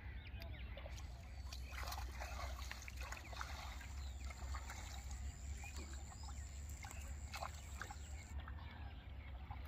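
Water sloshing and trickling in short, irregular splashes over a low steady rumble, with a thin, steady high-pitched tone from about a second in until near the end.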